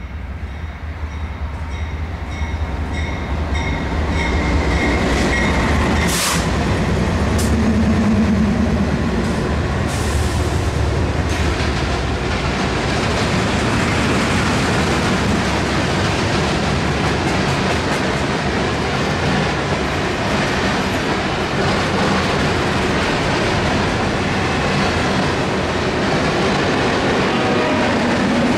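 BNSF freight train passing: a lashup of diesel locomotives rumbles by, growing louder over the first few seconds, with a few sharp clanks, then the steady rolling noise and wheel clatter of double-stack container cars.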